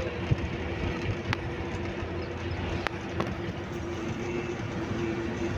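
Steady running noise of a moving vehicle: a low rumble with a constant hum and a couple of faint ticks.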